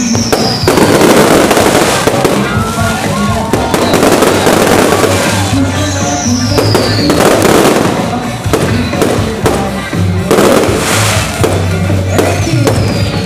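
Aerial fireworks shells bursting and crackling in quick succession, with high falling whistles now and then.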